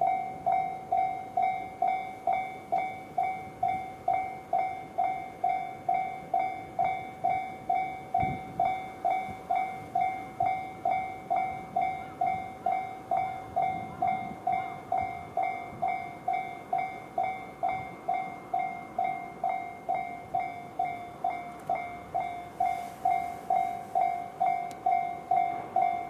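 Japanese railway level-crossing alarm sounding the JR standard electronic bell tone, ringing steadily at a bit over two strikes a second, each strike sharp and then fading: the signal that a train is approaching and the crossing is closed.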